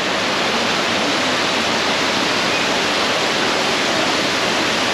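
Steady, even rush of a waterfall pouring into a fish pond.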